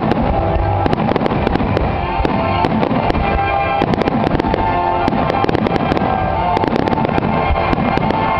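Aerial fireworks bursting in rapid succession, a dense run of bangs and crackles, over loud music with held notes.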